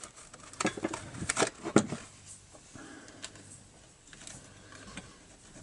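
Light clicks and knocks of metal parts being handled as the string trimmer's gearbox head is slid back onto the shaft tube. These come mostly in the first two seconds, followed by faint handling noise as a hex key is brought to the clamp bolt.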